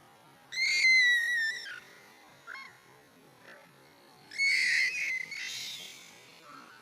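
Monkeys screaming. A long, high call that drops slightly in pitch comes about half a second in, then a short squeak, then a second, harsher scream about four and a half seconds in that trails off.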